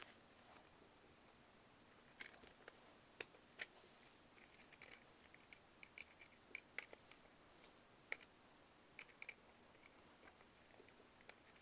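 Faint, irregular clicks and scrapes of a small screwdriver driving screws back into a plastic VHS cassette shell.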